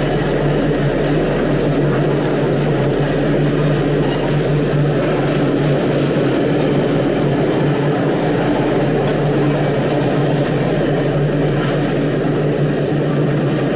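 Loaded freight hopper wagons rolling past close by: a steady, loud rumble of steel wheels on the rails with an even low hum underneath.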